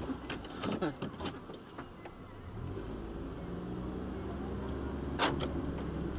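Car engine heard from inside the cabin as the car pulls away: a low steady hum that comes up about two and a half seconds in. A few clicks and knocks come first, and there is one sharp click near the end.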